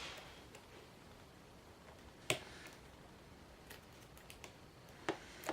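Small sharp metallic clicks of a lock pick and tension wrench working the pins inside a padlock cylinder: one louder click about two seconds in and two more near the end, with fainter ticks between.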